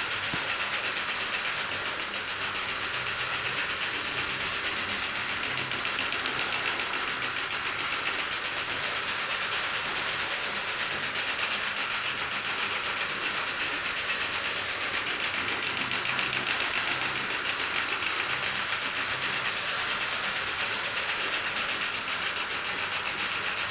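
Mamod SL2 live-steam locomotive running along the track pulling two wagons: a steady hiss of steam exhaust with fast, even chuffs.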